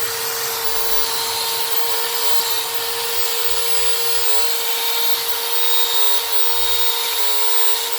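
A small machine motor running steadily, with a constant whine and a strong hiss.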